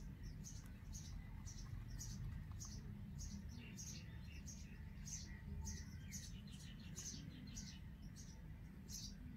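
Indian robin nestlings giving thin, high begging chirps about twice a second, with two quick runs of softer chirps in the middle, over a faint low rumble.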